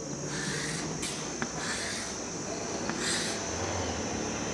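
Writing strokes: a few short scratchy strokes and light taps as a word is written out by hand, over a steady faint high whine, with a low hum coming in near the end.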